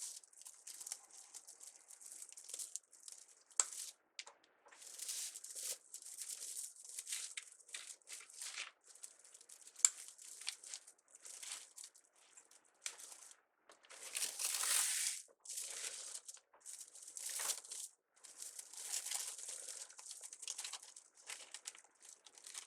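Plastic deco mesh and ribbon crinkling and rustling in irregular bursts as a wreath is worked by hand, with a few sharp clicks.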